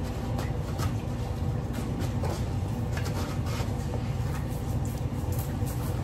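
A spatula and a plastic measuring cup scrape and crunch through loose snow in a plastic mixing bowl, with irregular light clicks and scrapes of the utensils against the bowl. A steady low hum runs underneath.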